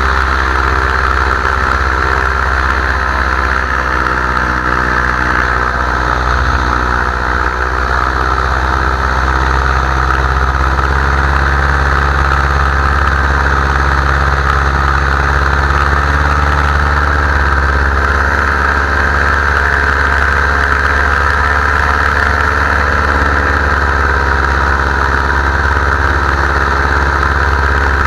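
Paramotor engine and propeller running steadily in flight, its pitch drifting slightly up and down a few times.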